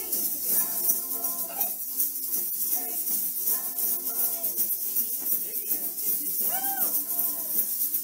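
A children's song with singing, while several plastic egg shakers rattle along to it, a busy shaking sound throughout.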